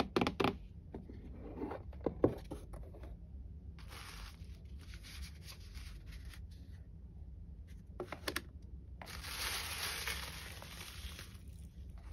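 Tissue paper rustling and crinkling as it is unfolded from a gift box, with the longest, loudest rustle about three-quarters of the way through. Light taps and clicks of stiff paper cards and the cardboard box are heard near the start and again about two-thirds of the way in.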